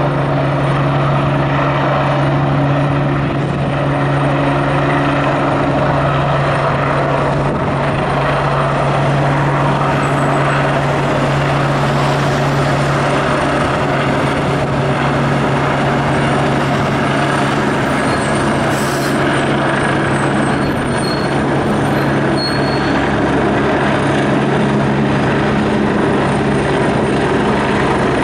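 Police helicopter hovering and circling low overhead: a loud, steady drone of rotor and turbine engine with a constant low hum.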